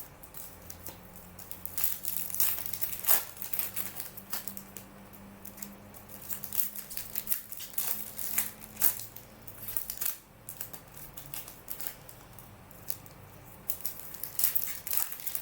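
Plastic packaging crinkling and crackling in irregular handfuls, with small clicks from cards and packs being handled. The crackling comes in clusters a few seconds apart, over a faint low hum.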